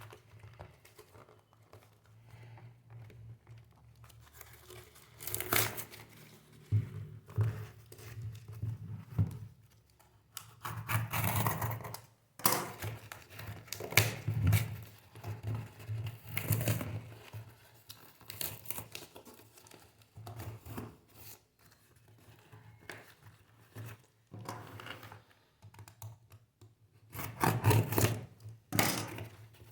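Packaging being torn, pried and crinkled by hand in irregular bursts as a tightly packed box is worked open.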